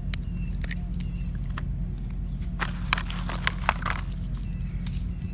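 Toy slime squelching and small plastic clicks as fingers dig a tiny figure out of a slime capsule: scattered sticky crackles, busiest in the middle, over a steady low hum.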